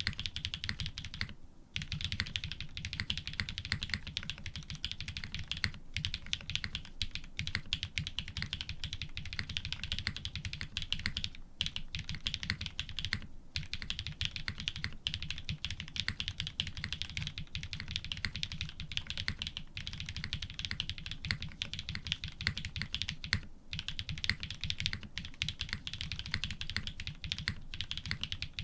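Continuous fast typing on an F1-8x custom mechanical keyboard with lubed Cream-stem linear switches in Cherry housings, 50 g springs, an FR4 plate and GMK keycaps: a dense patter of keystrokes, broken by short pauses about a second and a half in and twice around the middle.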